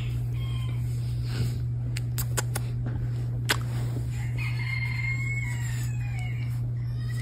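A rooster crowing once in one long call, starting about four seconds in and falling in pitch at the end, over a steady low hum. A few sharp clicks come between about two and three and a half seconds in.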